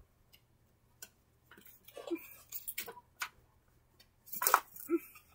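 Faint, scattered light ticks and taps with a few short soft rustles, typical of small handling noises.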